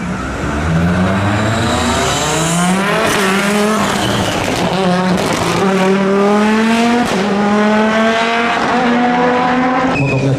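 Audi Quattro S1 rally car engine accelerating hard through the gears, its pitch climbing and dropping back at each shift, about once a second.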